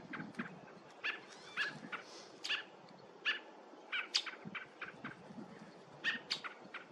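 Baby bird giving short, high chirps, a dozen or so at irregular intervals, while being held and handled.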